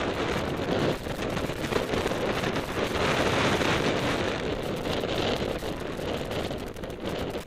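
Wind buffeting the microphone: a loud, continuous rushing noise with crackle in it.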